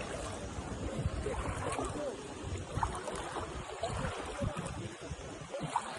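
Sea water washing and lapping, with wind buffeting the microphone and faint distant voices.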